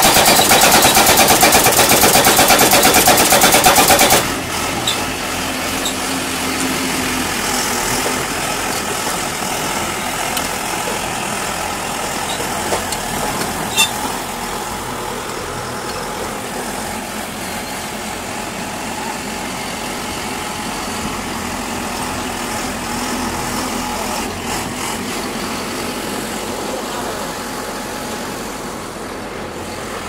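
Tracked pile driver's hammer pounding a steel post in rapid, evenly spaced blows, stopping abruptly about four seconds in. The machine's engine then runs on steadily at idle.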